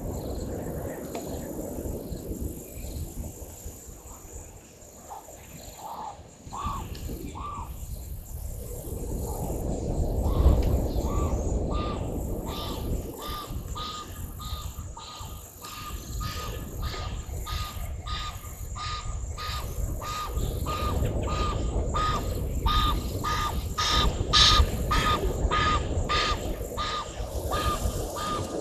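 Outdoor wildlife sound: a steady high-pitched insect chirring, and from about ten seconds in an animal call repeated about twice a second, over a low rumble.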